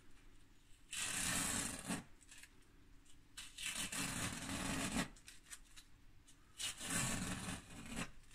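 Masking tape being peeled off a painted canvas: three long ripping pulls, each a second or so, with quieter handling between.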